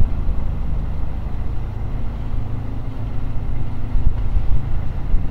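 A Boeing 777 Freighter's two GE90-110B1L turbofan engines at takeoff power during the takeoff roll: a steady, deep rumble.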